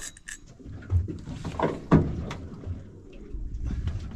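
A few sharp knocks and thuds, the loudest about two seconds in, over a low rumble.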